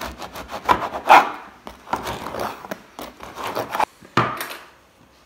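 A knife sawing back and forth through the crust of a loaf of bread on a wooden cutting board, with rapid crackling, scraping strokes. A single sharp knock comes about four seconds in.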